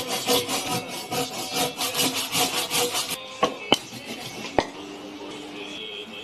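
A hand tool working wood with quick back-and-forth scraping strokes, several a second, which stop about three seconds in. A few sharp taps follow.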